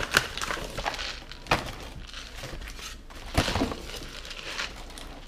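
Paper envelope and plastic bubble-wrap mailer crinkling and rustling as a wrapped can is pulled out and handled, with three sharper crackles, the loudest about three and a half seconds in.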